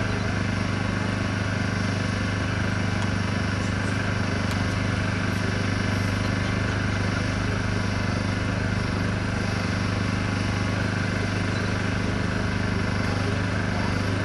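Steady, unchanging low mechanical hum, with a faint even background hiss.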